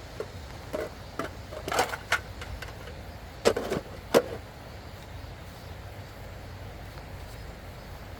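Steady rushing of a river, with a run of knocks and clatters in the first half, the two loudest about three and a half and four seconds in.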